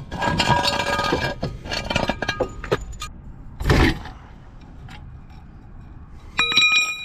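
Steel jack stand and Husky floor jack being handled: a run of metal clanks and clinks with ringing tones, one louder thump a little past halfway, then a few ringing metallic clangs near the end as the jack handle is worked to lower the car.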